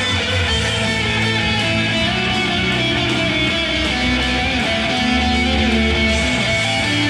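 Electric guitar played through an amplifier, long held notes and chords ringing on into one another.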